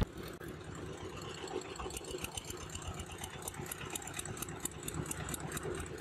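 Boat engine running steadily, with a rapid, even knock.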